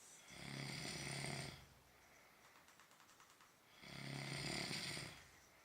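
A person snoring: two long snores, each about a second and a half, roughly three and a half seconds apart, with faint breathing between them.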